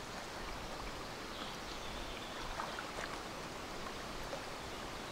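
Steady wind and water noise, with a low wind rumble on the microphone.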